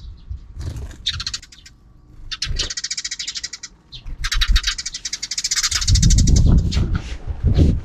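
Sparrows chattering in three bursts of rapid, high chirps, the longest lasting about two seconds. Near the end comes a loud low rumbling with knocks close to the microphone.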